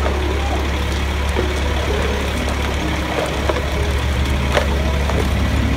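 A fire engine's engine running steadily at the scene, a low drone, with faint distant voices over it and a sharp knock about four and a half seconds in.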